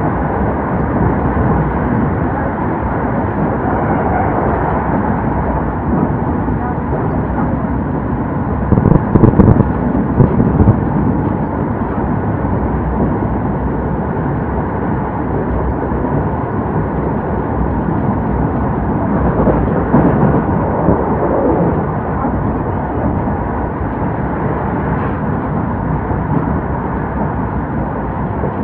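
Running noise of an old-type locomotive-hauled passenger coach: a steady rumble of wheels on rail, with a cluster of louder knocks about nine to eleven seconds in and a smaller swell near twenty seconds.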